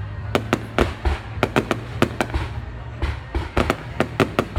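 Fireworks bursting in a rapid, irregular volley of sharp cracks and bangs, several a second, over a steady low rumble.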